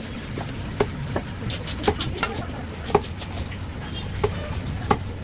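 Knife or cleaver chopping a rohu fish on a cutting block: about eight sharp knocks at uneven intervals, over a steady low hum in the background.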